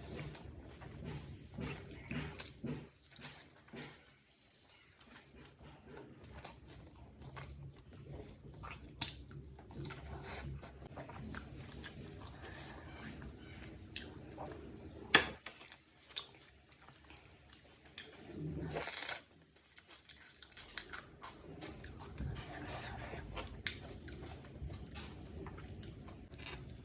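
Close-miked chewing and biting of mouthfuls of chicken biryani, with many small wet mouth clicks and crunches. A single sharp click comes about midway, and a louder short burst of crunching follows a few seconds later.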